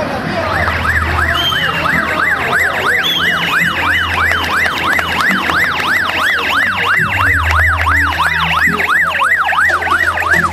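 Escort vehicle siren on a yelp setting, its pitch rising and falling rapidly about four times a second, over the low hum of a vehicle engine.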